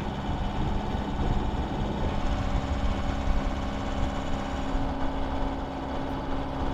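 Sailboat's inboard diesel engine running steadily while the boat motors along, with a steady low rumble and a few held tones in its drone.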